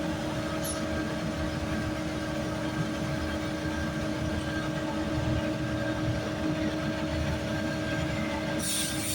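Steady mechanical rumble and hiss with a sustained whine.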